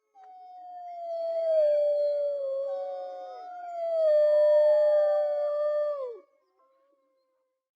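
Several wolves howling together in long, overlapping howls that hold their pitch and then slide down at the end. The chorus swells twice and stops about six seconds in.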